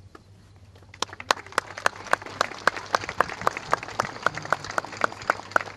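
A crowd clapping, starting about a second in, with sharp claps in an even beat of nearly four a second standing out.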